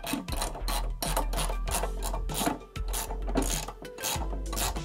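Background music, with rasping, rubbing strokes of a 13 mm wrench tightening bolts on the radio's mounting hardware, a few strokes a second.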